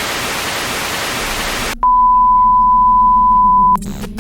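Loud hiss of broadcast static for about two seconds, then a single steady high-pitched beep held for about two seconds that cuts off abruptly, followed by a short crackle near the end.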